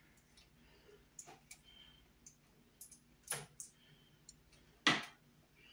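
Scattered metallic clicks and rattles of MC armored cable being worked into a cable connector by hand, with two louder clicks about three and a half and five seconds in.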